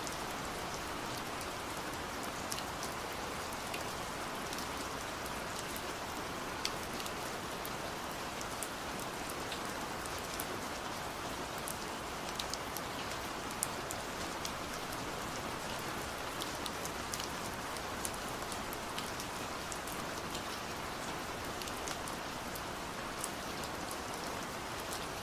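Steady rain falling, a constant hiss with many scattered sharp drip and drop ticks.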